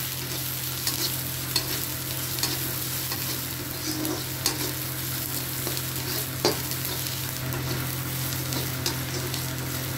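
Chopped onions and ginger-garlic paste sizzling in hot oil in a kadhai while a slotted spoon stirs and scrapes them, with scattered clicks of the spoon against the pan. This is the onions being fried to colour for the chole masala.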